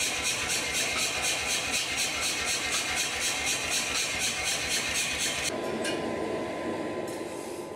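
Self-contained air power hammer left running, chuffing with a quick, even beat. About five and a half seconds in it cuts to a quieter steady hum.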